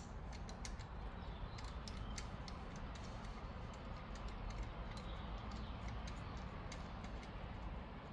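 Irregular light clicks and ticks of hand tools and small metal engine parts being handled, over a steady low hum.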